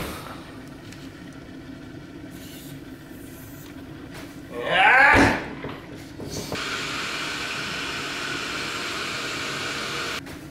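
A short, loud squeak with a wavering, sliding pitch about five seconds in, as a foot in a rubber slide sandal presses down on a wooden floor. About a second later there is a click, then the steady hiss of an electric kettle heating.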